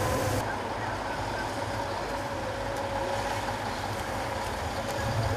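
Heavy truck engines running, with steady street traffic noise. The background changes abruptly about half a second in, as at a cut between shots.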